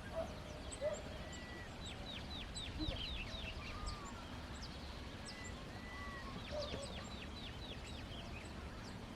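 Wild birds calling: two quick runs of short, falling notes, with scattered high chips and short whistles, over a low steady background rumble.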